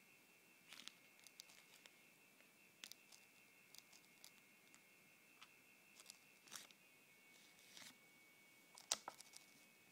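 Near silence with faint scattered clicks and taps of handling over a steady faint high-pitched whine; the loudest click comes near the end.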